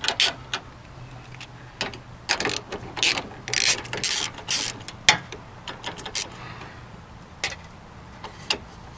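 Socket ratchet clicking in short, irregular runs as it loosens the bolts of a window regulator's glass clamp, metal pawl clicks.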